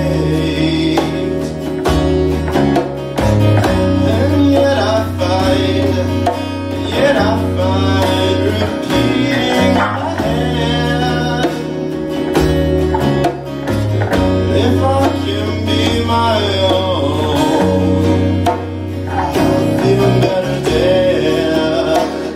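Live acoustic band playing a song: strummed acoustic guitars and a djembe hand drum under a male lead vocal.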